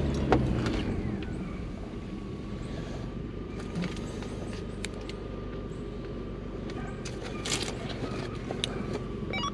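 Inside a Toyota truck's cab, engine and road noise run steadily. A few light clicks and rattles sound over it, and a faint steady whine comes in about a second and a half in.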